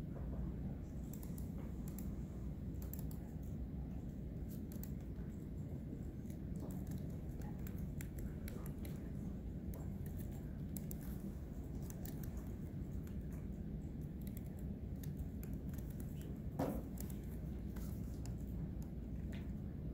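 Computer keyboard typing, scattered faint key clicks over a steady low room hum, with one louder knock near the end.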